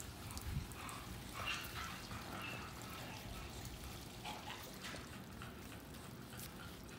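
Soft, wet rubbing and dripping as gloved hands lather shampoo into a wet puppy's coat, with water splashing off the fur.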